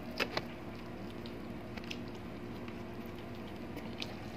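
Close-miked hand-eating: two sharp wet smacks near the start, then a few soft clicks of fingers in food and chewing over a steady low hum.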